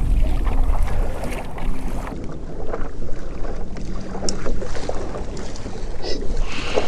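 Wind buffeting the microphone over water sloshing against a kayak's hull, with small scattered knocks. The low wind rumble is heaviest in the first second and then eases.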